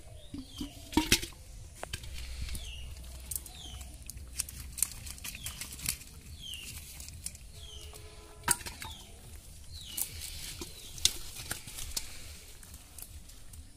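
Freshly caught fish flapping in an aluminium pot of water and in the cast net: scattered sharp slaps, knocks and splashes. Birds give short falling chirps in the background.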